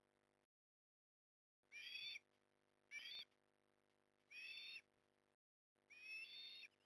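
Ospreys at the nest giving four short, high whistled calls, faint, each under a second long and a second or so apart.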